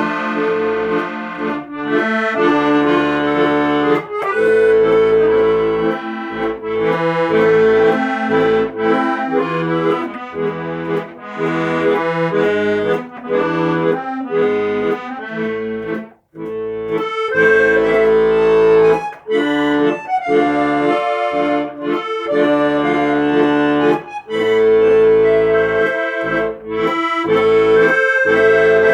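Accordion music: a melody over held chords, with a brief break about sixteen seconds in.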